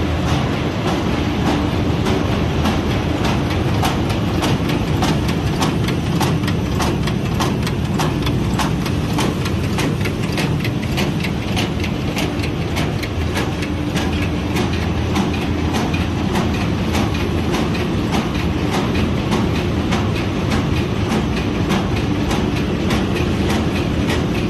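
Defective-diaper separation machinery running: a steady mechanical drone with a hum and a dense, irregular run of clicks and rattles.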